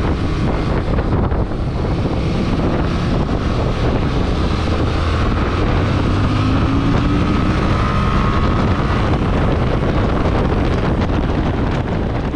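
Motorcycle riding at speed: wind rushing over the rider's microphone on top of the steady running of the Yamaha Tracer 7's parallel-twin engine.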